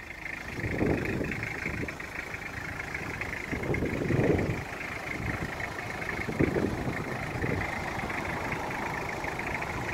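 Toyota Townace's 2-liter diesel engine idling steadily, with a few louder low swells about one, four and six and a half seconds in.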